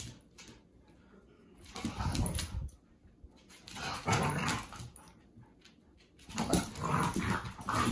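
Two dogs play-wrestling and vocalizing, with three bouts of grumbling and whining about two seconds apart.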